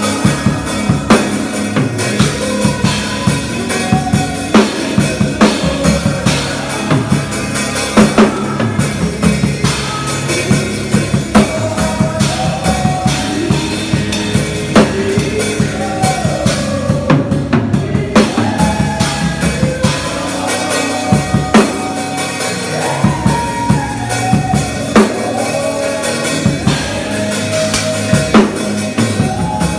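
Drum kit played live in a busy groove of kick drum, snare and cymbals along with melodic worship music. The cymbals drop out briefly about halfway through, then the groove carries on.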